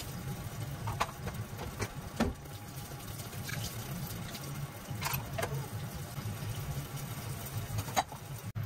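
Kitchen tap running into a stainless steel sink while dishes are washed and scrubbed, with a few short clinks and knocks of dishware; about eight seconds in, a bowl is set down in the dish rack with a knock.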